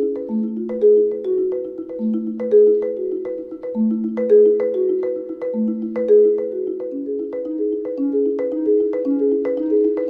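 Background music: a steady melody of struck, quickly fading notes over a lower note that changes about every two seconds.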